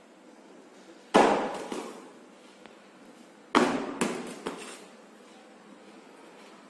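Cardboard carton holding a glass-cover wall pack light, packed in pearl cotton, dropped from about two metres onto a hard floor in a packaging drop test, landing with a loud thud twice: about a second in and again about three and a half seconds in, the second landing followed by a few smaller knocks.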